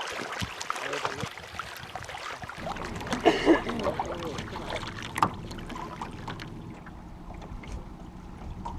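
Knocks and rattles in a small rowboat on the water, with a sharp knock about five seconds in.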